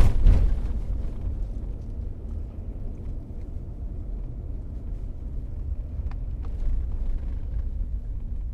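A car being driven: a steady low rumble of engine and tyre noise, heard from inside the car, with a louder thump right at the start.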